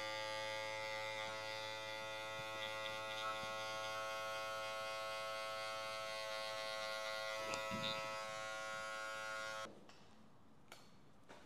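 Cordless electric hair clippers running with a steady buzzing hum while cutting short hair at the back of the neck, switched off abruptly about ten seconds in. A couple of faint clicks follow.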